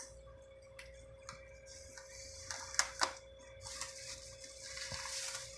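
Quiet handling noises of bagged fish being set in a glass aquarium: a few light clicks and taps, then a plastic bag crinkling for a couple of seconds near the end, over a faint steady hum.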